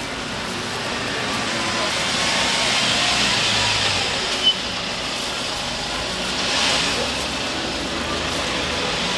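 Egg and shredded cheese sizzling on a hot round crepe griddle, a steady hiss that swells twice, with one brief sharp sound about four and a half seconds in.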